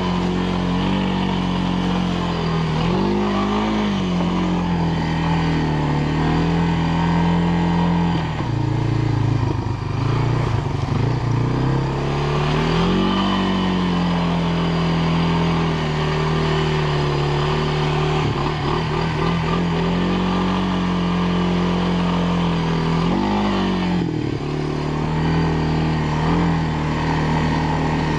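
Honda FourTrax ATV's four-stroke engine running under throttle. Its pitch swells briefly about 3 s in, sags low for a few seconds about a third of the way through, then rises again around the middle and once more near the end as the rider works the throttle.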